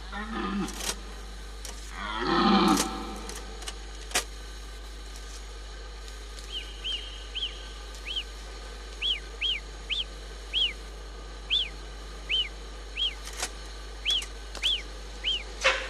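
Wildlife recording played back from a cassette tape: a red deer stag's low rutting roars in the first three seconds, a sharp click about four seconds in, then from about six seconds a series of some fifteen short, high, chirping whistles from a marmot.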